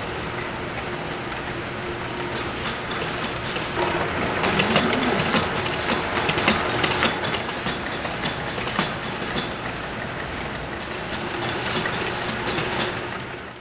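LSI 1500i Std bottle labeling machine running: a steady motor and conveyor hum, with irregular clicks and ticks from the mechanism as plastic bottles are carried through and wrapped with labels.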